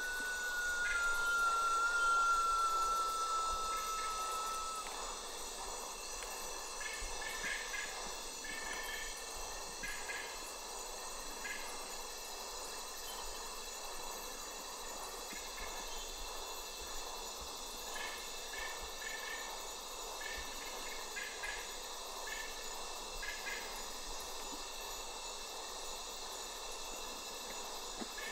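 White-winged potoo giving one long whistle that slides slowly down in pitch and ends about five seconds in. Behind it, a steady high insect chorus continues, with repeated clusters of short chirping notes every few seconds.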